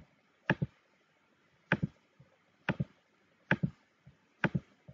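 Five sharp double clicks from a computer mouse and keyboard, about one a second, with quiet between them.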